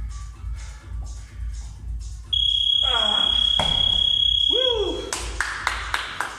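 Workout music with a steady beat, cut off about two seconds in by a long, loud, steady high beep from an interval timer marking the end of the work period. Midway a medicine ball thuds onto the padded floor and a man gives a short vocal exhale, then near the end comes a quick run of hand claps.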